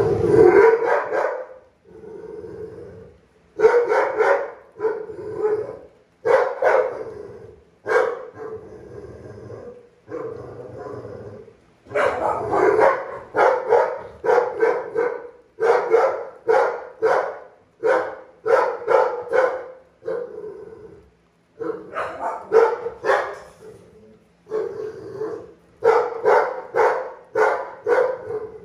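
A pit bull-type dog barking over and over, in runs of about two barks a second with short pauses between runs.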